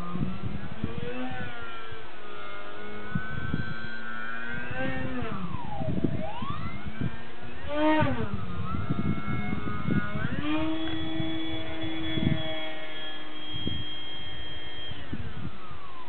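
Skeeter 36 RC model airplane's motor and propeller running in flight, the pitch rising and falling with throttle and passes, with a deep dip about six seconds in. About ten seconds in it climbs to a high, steady pitch, holds it for several seconds, then falls away near the end. Wind buffets the microphone throughout.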